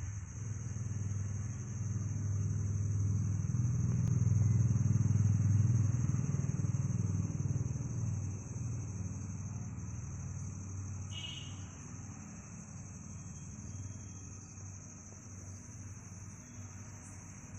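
Crickets chirring steadily on one high note. Under them a low rumble swells to its loudest about five seconds in, then slowly fades. A single short chirp comes about eleven seconds in.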